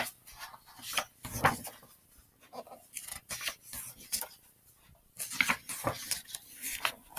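Paper picture book being handled and opened: intermittent light rustling and rubbing of pages.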